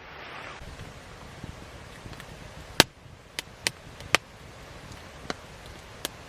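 Wood fire crackling, with about six sharp pops at irregular intervals, the loudest a little under three seconds in.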